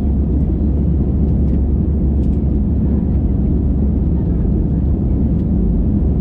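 Steady low roar of an Airbus A320's jet engines and airflow, heard inside the passenger cabin with the engines at high thrust during takeoff. A few faint clicks sit under the roar.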